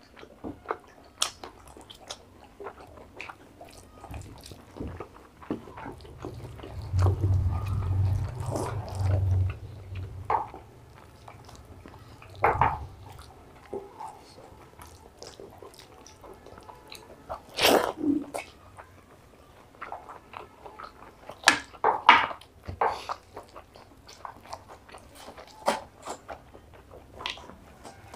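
Close-miked mouth sounds of people eating curry and rice by hand: chewing, biting and wet lip smacks, heard as scattered short smacks and clicks. A low hum swells for a few seconds about six seconds in.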